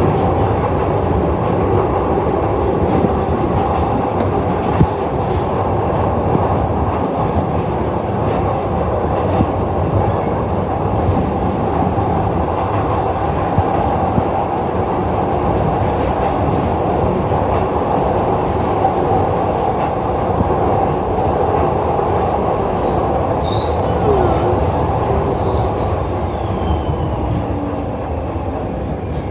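Glasgow Subway train running through its tunnel, heard from inside the carriage: a loud, steady rumble and rattle of wheels on rail. A brief high-pitched squeal rises and wavers a few seconds before the end.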